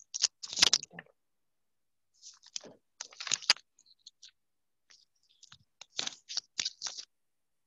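Scratchy rustling and scraping handling noise close to the microphone, in short clusters of bursts with dead silence between them, as a cord is fiddled with.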